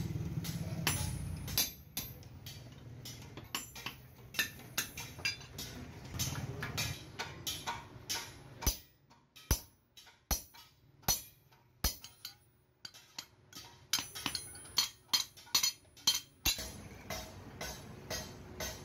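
A hand hammer strikes a steel punch held on a flat hoe blade over a small anvil, giving sharp metallic clinks in irregular runs, with a short pause about twelve seconds in. A low rumble fades out in the first two seconds.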